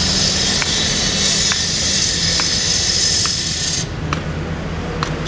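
Caterpillar 319C excavator's diesel engine running steadily under load, with a loud hiss that cuts off suddenly about four seconds in and a light tick about once a second.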